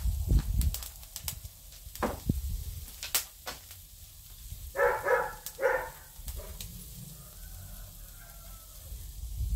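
Pork souvlaki faintly sizzling on a charcoal grill, with sharp clicks and taps of metal skewers and utensils against the grate and a low thump near the start. A short animal call of two or three notes comes about five seconds in.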